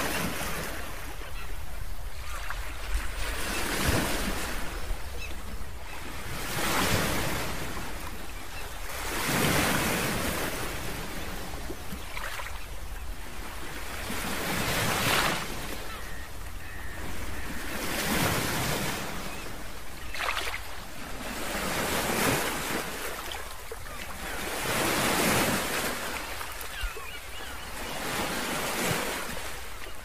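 Ocean surf: waves washing in one after another, each swell of rushing noise rising and fading about every three seconds.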